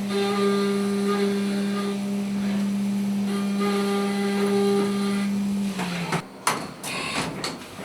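CNC milling machine's spindle running at a steady pitch, which dips and cuts off about six seconds in, followed by a few sharp knocks and clatters.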